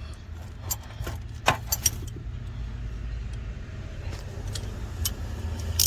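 Short, sharp metallic clicks and clinks of tools and steering-wheel parts being handled, several in the first two seconds and a few more near the end, over a steady low rumble.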